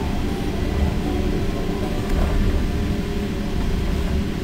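Indian Pacific passenger train running along the track, heard from inside the carriage: a steady low rumble.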